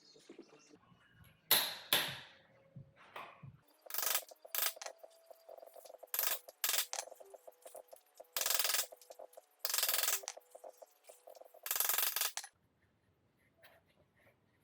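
Ratchet wrench clicking in short bursts on a motorcycle's front sprocket nut, after a single sharp metal knock about a second and a half in.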